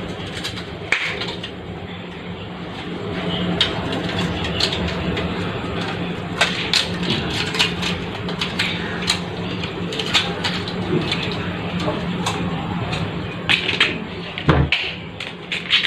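Kittens playing on a tiled floor: scattered light taps and clicks, over a steady low hum.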